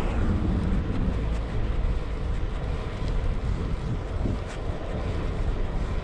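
Wind buffeting the microphone of a moving bicycle, a steady low rumble with a hiss above it.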